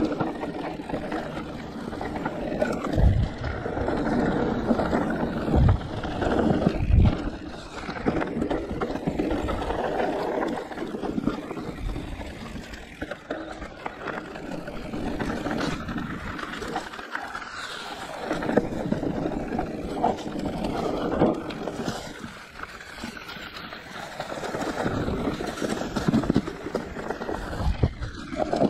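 Riding noise of a Giant Reign E+ e-mountain bike on a dirt trail: wind rushing over the microphone and tyres rolling, with a few low thumps from bumps.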